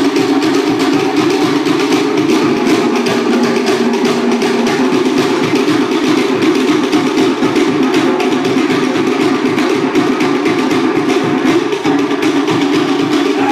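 Cook Islands drum ensemble playing a fast, driving rhythm on wooden slit drums, a dense run of rapid strikes without a break.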